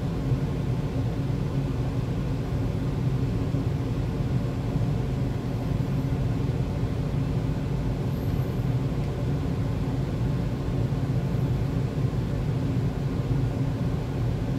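Steady low mechanical hum of room background noise, unchanging throughout.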